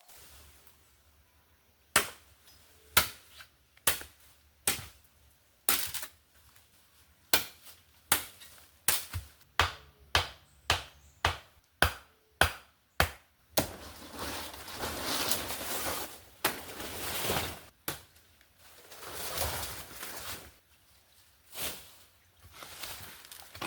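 Brush being chopped while clearing overgrown ground: a run of sharp chopping strokes, at first about one a second and then quickening to about two a second. From about halfway through, longer swishing and rustling of cut vegetation being moved, with one more stroke among it.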